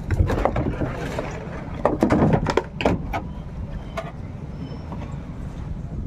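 Irregular wooden knocks and thumps on a wooden fishing boat, with a cluster of them about two seconds in, over a steady low rumble.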